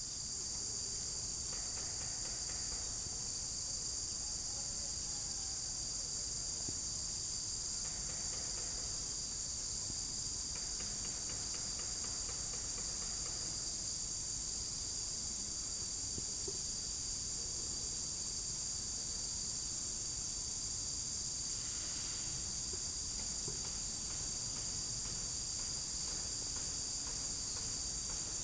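A continuous chorus of insects making a steady high-pitched drone that neither rises nor falls.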